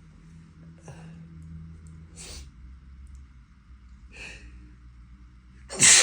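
A person's short, breathy intakes of breath as a sneeze builds, three of them, then one loud sudden sneeze near the end. It is a sneezing fit set off by the strong scent of a musky rose candle.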